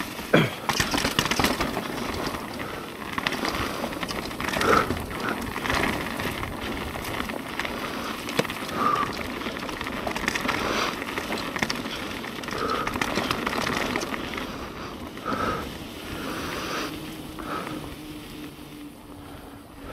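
Mountain bike riding along a dirt trail: tyres rolling over the ground, with the bike rattling and knocking over bumps.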